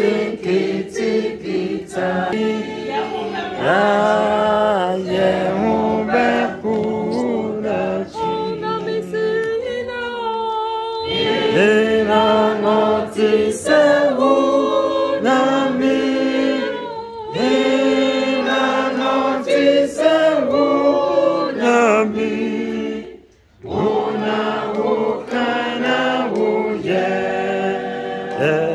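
A choir singing together, several voices held in harmony, with a brief break about 23 seconds in.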